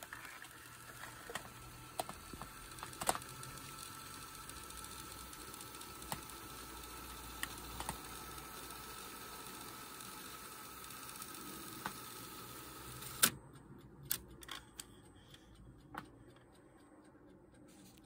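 Yamaha KX-200 cassette deck's tape transport mechanism running: a faint steady whine and low hum with occasional light clicks. About 13 seconds in it stops with a sharp clunk, followed by a few soft clicks.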